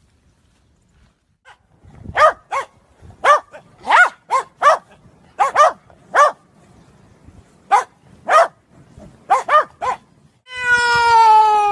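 A small dog yapping: about fourteen short, high-pitched barks, often in twos and threes. Near the end a cat starts one long meow that falls in pitch.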